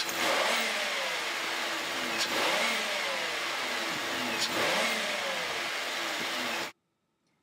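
Car engine running and revved in three throttle blips about two seconds apart, the pitch falling back after each one. The sound cuts off suddenly near the end.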